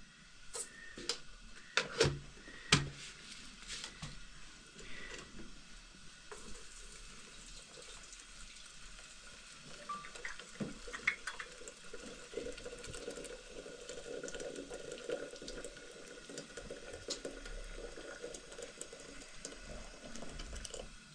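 Water running and splashing steadily, with a few sharp knocks in the first three seconds and scattered small clicks.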